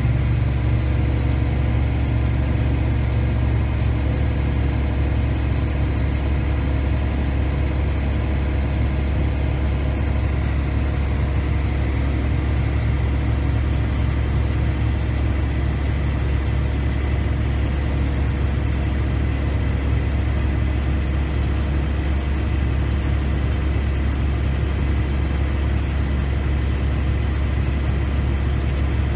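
John Deere combine running steadily: an even, deep machine hum with steady tones above it and no change in pace.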